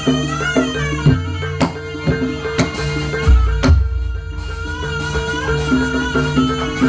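Traditional East Javanese barongan accompaniment music: a wavering, gliding lead melody over a steady held tone, with repeated drum strokes and a couple of heavy low strikes a little past the middle.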